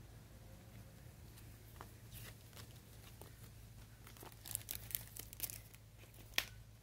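Plastic packaging crinkling and rustling as hands rummage through wrapped boxes: a run of short crackles that grows busier partway through, with a sharp click near the end.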